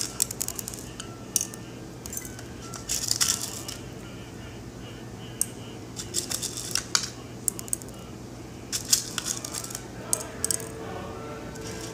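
Irregular clusters of light clicks and rattles from small hard items being handled, several times over a faint steady low hum.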